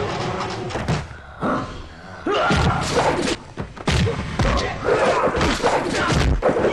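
Movie fight sound effects: a rapid series of punch and kick thuds and slams, with short shouts and grunts from the fighters between the blows.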